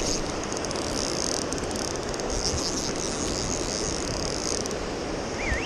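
Steady rush of river rapids, with a fly reel's drag buzzing in spurts as a hooked salmon pulls out line.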